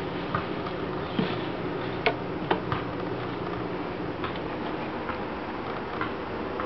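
Scattered light clicks and taps from handling a clear plastic gerbil cage, over a steady low hum.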